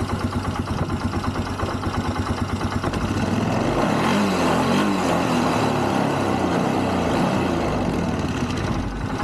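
ATV engine idling during its cold-start warm-up, still wanting a little choke. About three seconds in the engine speed rises and holds higher and louder, then falls back near the end.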